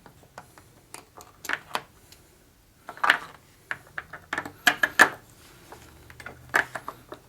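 Hand tools clicking and tapping against small metal parts in irregular bursts, with the loudest cluster of taps around the middle, as the blocked screw hole in the fuel pump plate is probed.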